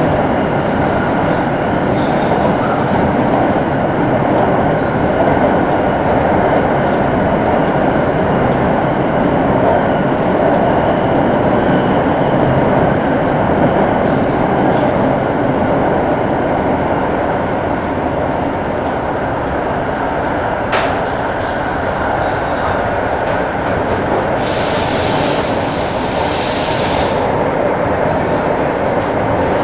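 Santiago Metro Line 6 AS-14 train running at speed through a tunnel, heard from inside the car as a steady loud rumble. A sharp click comes about two-thirds of the way through, and shortly after a loud hiss lasts about three seconds.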